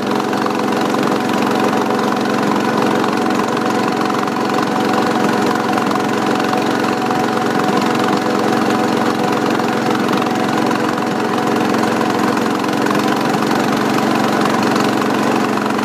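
John Deere 214 garden tractor's single-cylinder Kohler engine running steadily under way, with an exhaust pipe the owner says needs replacing.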